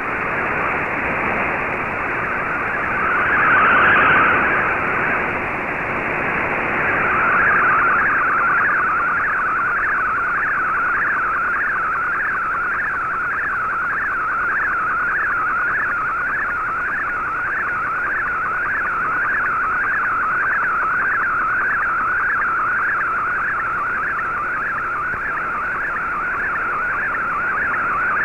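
An MFSK64 digital picture transmission heard through a shortwave receiver in AM mode: a warbling data tone over radio hiss, wavering in a steady pattern about twice a second as the image lines come in. A swell of noise about four seconds in briefly muddies the tone, the kind of signal fading that causes decoding errors.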